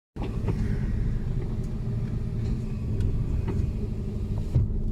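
Mercedes-Benz Actros truck's diesel engine running, heard from inside the cab as a steady low rumble, with a few small clicks and rattles over it.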